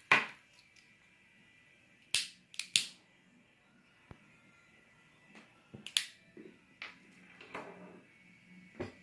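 Hand-held lighter's igniter clicking several times at irregular intervals, a few seconds apart, while lighting the alcohol burner of a model Stirling engine. A soft rush comes in a little after the middle.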